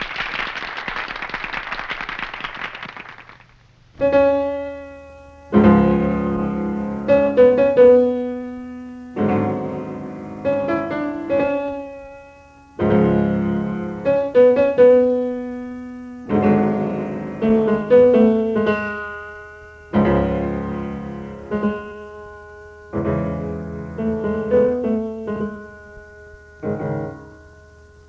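Brief applause, then about four seconds in a grand piano starts playing solo: swing-style chordal phrases, each chord struck and left to ring away before the next.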